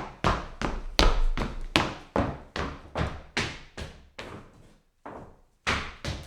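Hard-soled shoes walking on a wooden floor: sharp, evenly paced footsteps at about two and a half a second, each ringing briefly in the room. The steps pause for about a second, about four and a half seconds in, then carry on.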